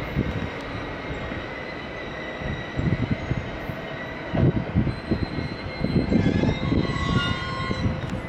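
JR West local commuter electric train drawing to a stop at the platform, with a steady high whine over the rumble of the wheels. A few higher squealing tones join near the end.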